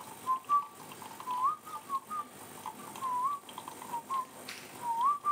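Someone whistling a tune: a run of short notes with quick upward slides.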